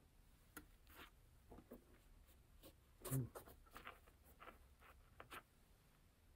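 Faint handling sounds of a sneaker being turned over and looked over: scattered short scratchy rustles and light taps, with one louder knock about three seconds in.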